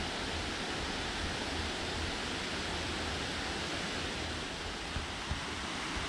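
Steady rush of a stream flowing over a stony bed.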